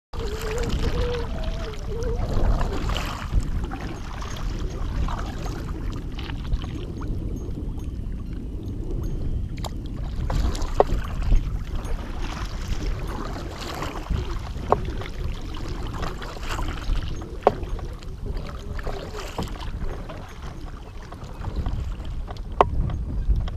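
A kayak moving across open water: steady water and wind noise on the microphone, with occasional light knocks on the hull.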